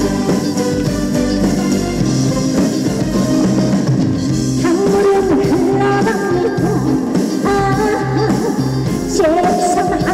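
Instrumental break of a song played loud over a live stage sound system: a band accompaniment with a steady beat, and from about halfway in a lead melody of long held notes.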